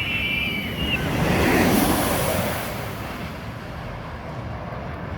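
Steady outdoor rushing noise, swelling about two seconds in, with a brief high whistle-like tone in the first second.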